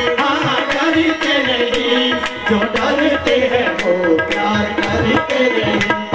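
Qawwali accompaniment between sung lines: tabla playing a steady beat under a held, wavering melody line.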